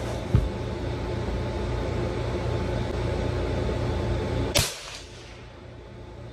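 A scoped bolt-action rifle fired once about four and a half seconds in: a sharp crack with a brief ring-out. A steady low hum runs beneath it and drops away at the shot, and there is a dull low thump near the start.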